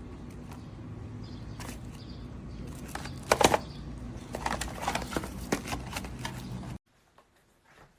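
A series of small clicks and knocks, loudest in a quick cluster about three seconds in, over a steady low hum that cuts off abruptly near the end.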